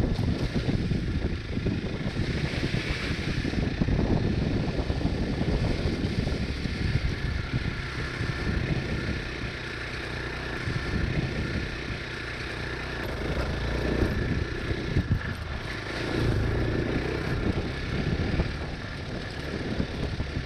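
Hero Xpulse 200's single-cylinder engine running as the motorcycle rides a rough dirt trail, with rumbling, uneven noise that rises and falls with the throttle.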